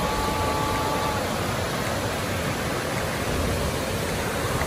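Steady rushing of water pouring over a concrete dam spillway and the low stepped weirs below it.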